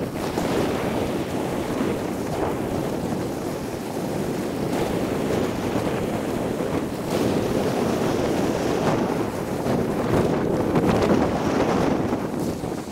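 Steady wind noise buffeting the microphone of a camera carried on a moving bicycle, a little louder in the second half.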